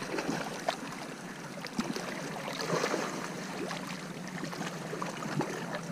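Water sloshing and lapping at the shoreline, with scattered small clicks and knocks and a faint steady low hum underneath.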